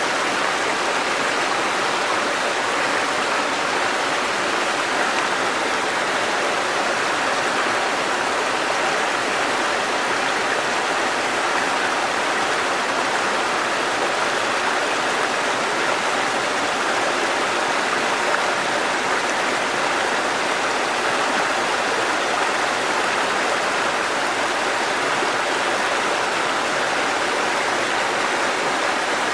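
A small waterfall, a thin curtain of water falling onto rocks and into foaming water at its foot, splashing in a steady, unchanging rush.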